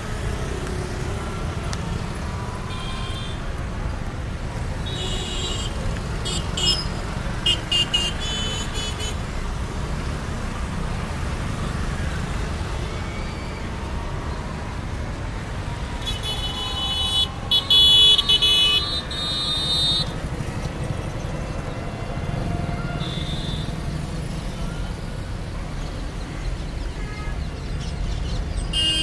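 Steady road traffic of motorbikes and cars, with short high-pitched horn honks again and again. The longest and loudest run of honking comes a little past the middle.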